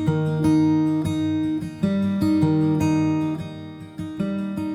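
Outro music: acoustic guitar strumming chords at a steady pace, fading down near the end.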